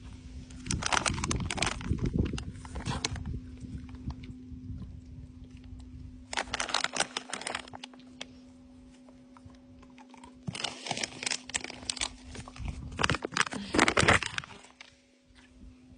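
Dogs crunching and chewing treats close to the microphone, in four bursts of a few seconds each, the last one the loudest.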